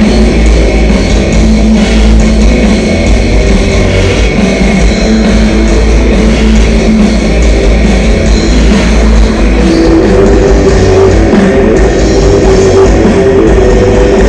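Rock band sound-checking, with electric guitars, bass and drum kit playing loud and steady, near the limit of a phone microphone.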